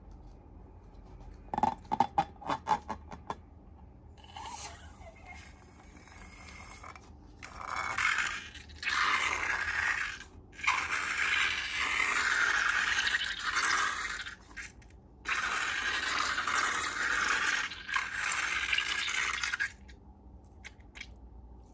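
Slime and balloons being handled for slime-making. There are a few sharp crackles early on, then several long stretches of hissing, gushing scraping noise with short breaks between them.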